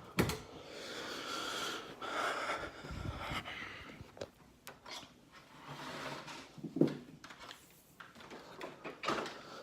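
Handling noises while the vacuum is readied to plug in: rustling with scattered clicks and knocks, one louder thump about two-thirds of the way through. The vacuum motor is not yet running.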